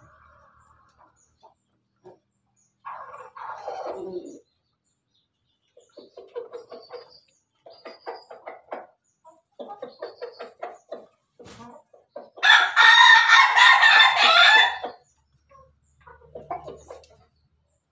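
Chickens clucking in quick runs of short notes, with a rooster crowing once, loud and about two seconds long, some twelve seconds in. A shorter falling call comes about three seconds in.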